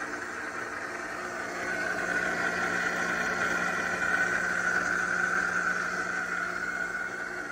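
ChefWave Milkmade nut milk maker running its program, its motor whirring steadily as it blends sunflower seeds and water into milk. It grows a little louder about two seconds in.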